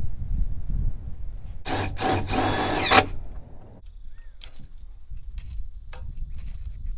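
A power drill or driver run in two short blips, then for about a second, stopping abruptly, as when driving a screw into framing lumber. Wind rumbles on the microphone, and a few faint ticks and clicks follow.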